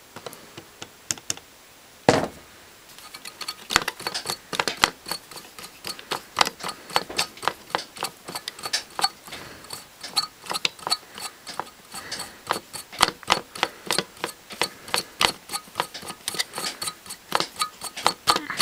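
A sharp knock about two seconds in, then a long run of small, irregular clicks and taps, several a second, from the opened hand mixer's plastic housing and gear parts being handled while its motor shaft is oiled.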